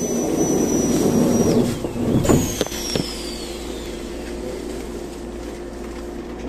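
Shinano Railway electric train heard from inside a carriage: running noise with a louder rumble in the first second or so, a few sharp knocks about two to three seconds in, and high thin whines that slide down in pitch.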